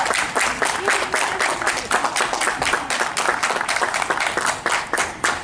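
A group of guests clapping their hands together in a quick, even beat.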